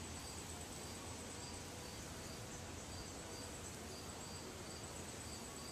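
Faint outdoor insect sound: a chirp repeating evenly about three times a second over a steady high-pitched hum.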